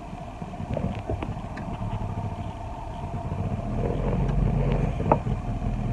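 Car engine and road noise heard from inside the cabin: a steady low rumble with a few small clicks, growing slightly louder in the second half.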